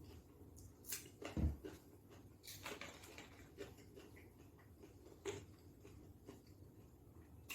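Close-mic eating sounds: chewing and scattered crunches of a stuffed cucumber boat, with one low thump about one and a half seconds in.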